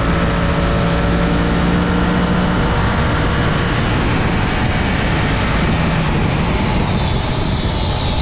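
Yamaha FZ-10 motorcycle's crossplane inline-four running at a steady pace under a loud, even rush of wind and road noise. The engine note is plain for the first couple of seconds, then sinks into the rush.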